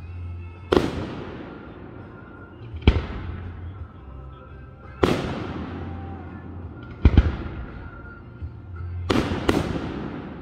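Aerial firework shells bursting overhead: six sharp booms, about one every two seconds, each trailing off in a fading rumble, with the last two coming close together near the end.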